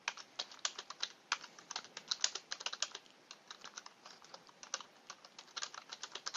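Typing on a computer keyboard: a fast, irregular run of key clicks as a line of text is entered.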